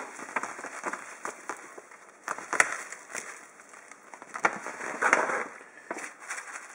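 Light granular substrate (Hatchrite) poured from a bag into a plastic tub: scattered crackling ticks of granules landing on the plastic and on each other, with a brief denser rush of pouring about five seconds in.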